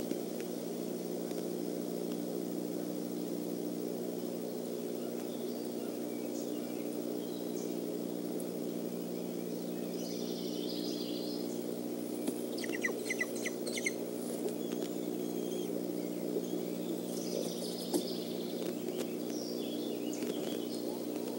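Scattered bird chirps over a steady low hum. About halfway through there is a quick run of about six sharp chirps, and a few more calls come near the end.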